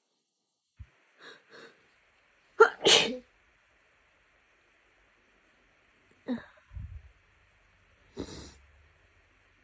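A woman with a head cold sneezing once, a wet, loud sneeze about three seconds in, preceded by two short catching breaths. Quieter breathy sounds follow later.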